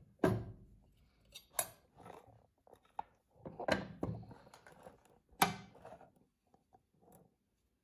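Handling clatter as a denture on its metal holder is lifted out of a light-curing box and set down on the bench: four sharper knocks among softer rustles and taps.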